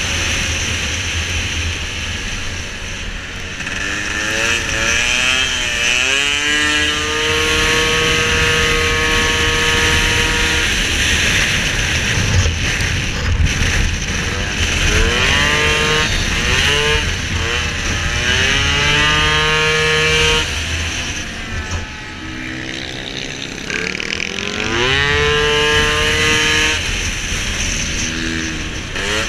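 Racing scooter engine at full throttle, its pitch sweeping up quickly and then holding level for a few seconds before dropping off and climbing again, several times over.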